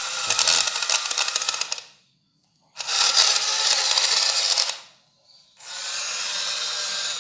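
Small electric gear motors of a remote-control toy excavator whirring and grinding in three bursts of about two seconds each, with short silent pauses between them as the controls are pressed and released.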